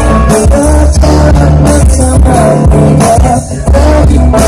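Live band playing through a PA with a singer: guitars, bass and keyboard over a steady beat, with a short break about three and a half seconds in.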